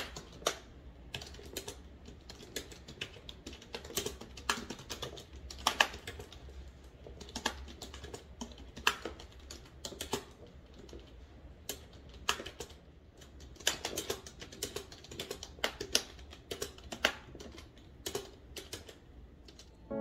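Typing on a computer keyboard: quick, irregular key clicks with occasional louder strokes, over a faint low hum.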